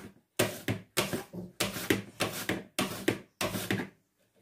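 A peeled potato pushed back and forth over a wooden mandoline slicer, cutting thin slices: a scrape with each stroke, about two strokes a second, stopping near the end.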